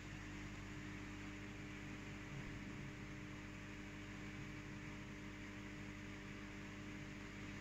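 Steady hum of running aquarium equipment, an air pump and filter, with a layer of soft hiss from air bubbling through the water.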